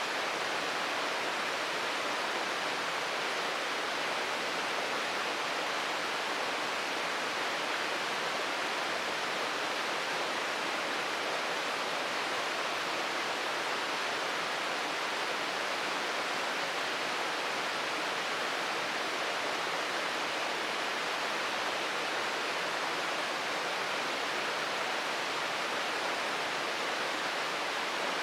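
Shirogane Falls, a waterfall, pouring and splashing in a steady, unbroken rush of water.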